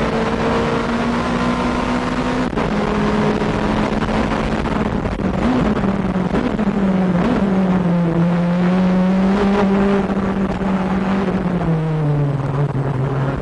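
Nissan R90CK race car's twin-turbo V8 running hard at high revs. Its pitch steps down about two seconds in, dips briefly a few times in the middle, and drops again near the end.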